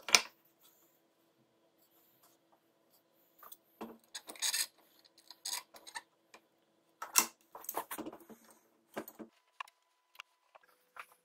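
Steel try square and steel screw C-clamps handled against plywood: a sharp knock at the very start, then scattered clicks, knocks and short scraping rubs as the clamps are set on and screwed tight over a plywood stop block.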